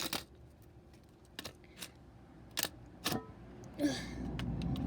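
Several sharp knocks and clacks, about six spread out, as an old Potterton boiler control panel is struck and cracked apart.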